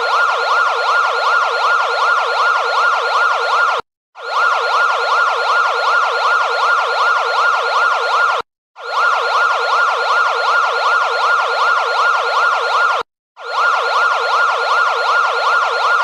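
Electronic emergency-alert siren tone, a Morocco EAS alarm: a loud, fast warble sweeping up and down about four times a second, in bursts of about four seconds broken by three short gaps.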